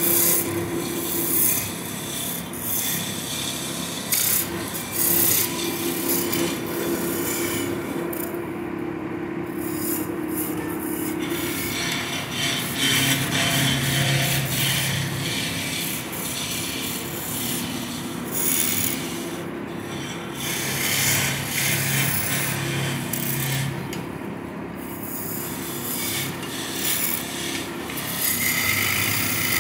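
Wood lathe running with a steady hum while a tool scrapes against the spinning wood, with brief lulls when the cut eases off.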